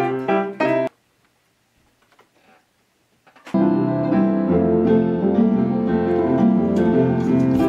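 Piano chords that stop abruptly just under a second in, followed by about two and a half seconds of near silence; then fuller music with piano and guitar starts up and plays steadily.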